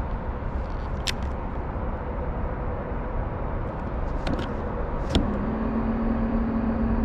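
The small motor of a motorized pool float runs steadily with a low hum and a few sharp clicks. About five seconds in, after a click, a steady lower hum sets in.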